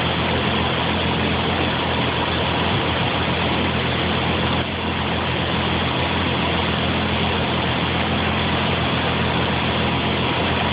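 Car engine idling steadily, its pitch unchanging.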